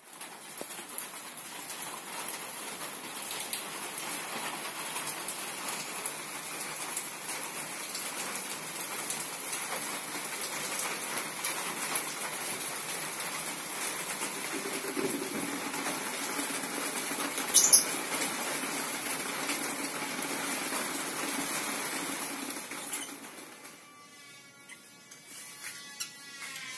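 Steady outdoor background noise with light rustling and small clicks, and one sharp click partway through. The noise drops away near the end, leaving birds chirping.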